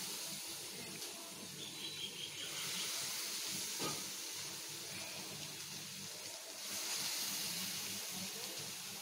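Banana fritter batter deep-frying in hot refined oil, a steady sizzle that grows louder about two and a half seconds in and again near seven seconds as more fritters go into the oil. A light click near four seconds in.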